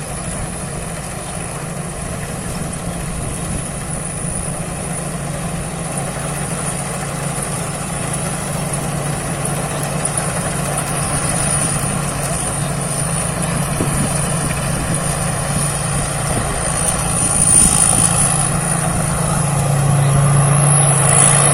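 Thai Seng rice combine harvester running steadily in the field, its diesel engine and machinery giving a continuous low hum with a steady high whine, growing gradually louder.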